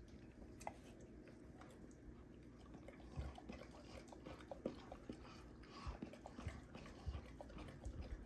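Rottweilers mouthing each other's faces in play: faint wet licking and nibbling clicks, with a few soft low thumps from about three seconds in.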